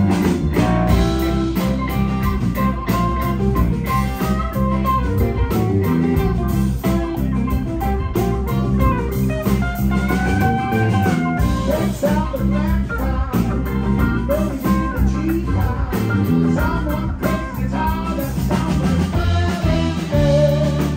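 Live rock band playing a passage without clear vocals: guitar lines with bent notes over a sustained bass and a steady drum beat.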